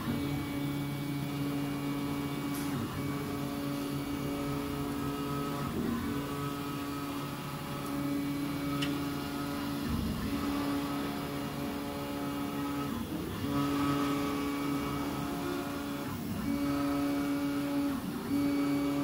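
Stepper motors of a large MINGDA MD-666 FDM 3D printer whining steadily as the print head travels while printing. The pitch shifts every few seconds as the head reverses direction at the end of each long pass, over a steady fan hiss.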